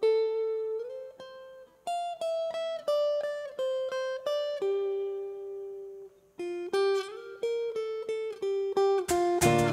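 Acoustic guitar playing a slow single-note melody as a song intro, each plucked note ringing out, with a slide up between notes about a second in. Near the end, strummed guitar and percussion come in together.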